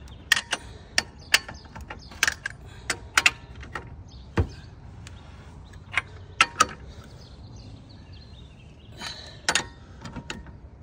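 Lug wrench on a car wheel's lug nuts, loosening them: irregular sharp metallic clicks and clinks as the wrench is fitted and turned, with a dull thump about four seconds in.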